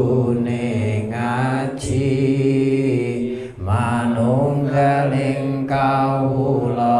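A man's solo voice chanting a devotional verse through a microphone, in slow, drawn-out lines of long held notes, with a short breath about three and a half seconds in.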